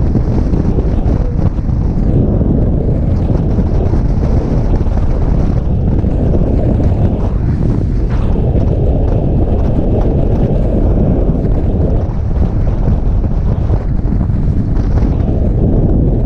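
Wind buffeting the microphone on a moving motorcycle at road speed, a steady loud rush. Beneath it runs the Indian Chief Bobber's V-twin engine.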